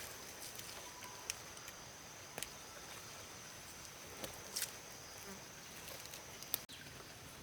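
Faint, steady high-pitched insect chirring, with scattered soft clicks and taps over it.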